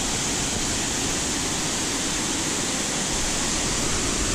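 Waterfall: falling water rushing steadily and evenly.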